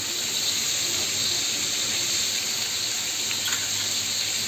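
Sliced bitter gourd and onion sizzling steadily in hot mustard oil in an aluminium kadai, freshly added to the oil, while a steel spatula stirs them.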